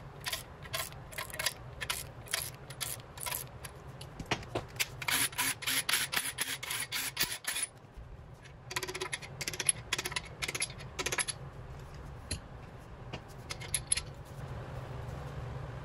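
Socket ratchet clicking as the main bearing cap bolts of a 351 Windsor block are backed out: spaced clicks, then a fast run of clicks around the middle, then more bursts of clicks. Near the end the loosened steel main caps clink as they are lifted off, and a steady low hum comes in.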